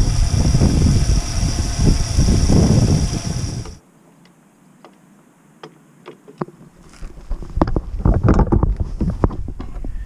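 Water running from a standpipe tap through a hose into a 40-litre Aquaroll plastic water container, a loud steady rush that cuts off suddenly about four seconds in. A few clicks follow, then from about seven seconds the Aquaroll rattles as it is wheeled over concrete and a metal drain grate.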